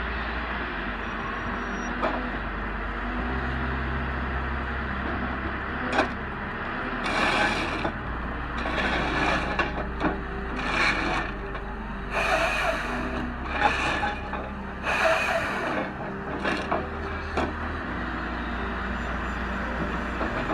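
A heavy machine's engine runs steadily while wood is broken up. In the middle of the stretch come repeated rough bursts of wood cracking and scraping, each lasting about a second, with a sharp crack just before them.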